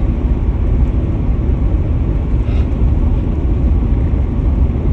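Steady low rumble of a car's road and engine noise heard from inside the cabin.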